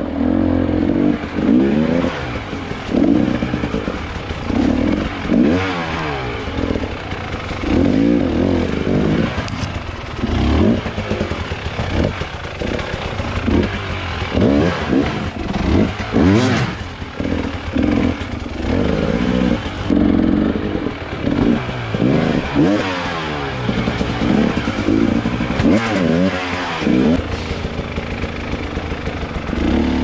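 Enduro motorcycle engine revving hard in repeated bursts, its pitch rising and falling every second or two, with some clatter.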